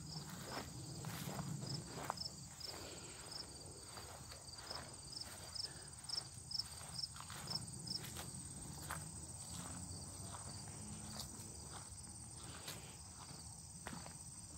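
Footsteps crunching through leaf litter on a woodland trail, over a steady high insect chorus. A short high chirp repeats about twice a second during the first half.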